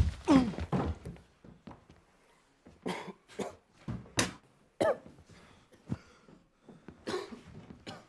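A teenage boy crying out in pain, then coughing and gasping in short bursts with a few dull thuds, as he is beaten.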